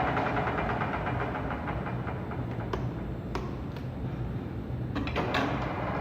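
Webo Varia 25 pillar drill running, its motor and geared spindle drive humming steadily with a fine even ticking, and a few sharp clicks.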